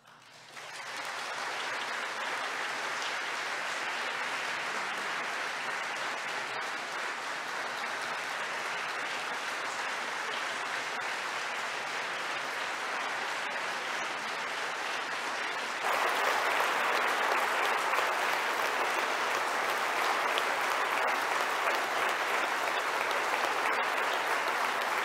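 Congregation applauding: a long, steady round of clapping that builds within the first second and grows louder about sixteen seconds in.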